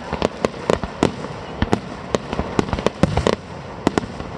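Fireworks going off in quick succession: many sharp, irregular bangs and pops over a continuous rumble.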